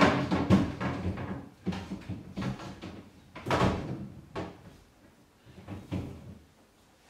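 A string of knocks and clatters, like cupboard doors or containers being handled, fading out about six and a half seconds in.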